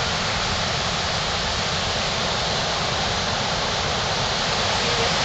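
Steady, even rush of fast-flowing water from a river or stream.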